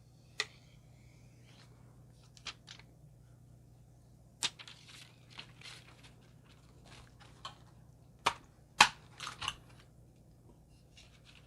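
Plastic protective film or cover being pulled off a keyboard: scattered crinkles and clicks, with a few sharper ones about two-thirds of the way through.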